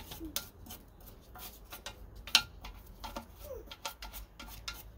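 A small brush scrubbing the grimy carburetor and fuel tank of a lawnmower engine: irregular light clicks and scrapes, with one sharper click about two and a half seconds in.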